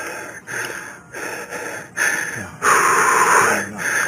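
A man's breathing close to a body-worn camera's microphone: a run of about six quick breaths, with a longer, louder one about three seconds in.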